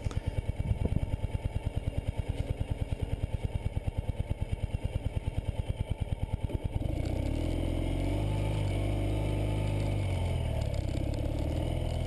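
Ural Patrol sidecar motorcycle's air-cooled flat-twin engine idling with a rapid, even beat, then about seven seconds in it pulls away and runs steadily under load, its pitch wavering.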